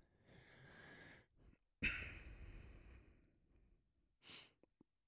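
A man breathing in, then a sudden heavy exhale like a sigh that fades over a second or so, and a short breathy hiss near the end.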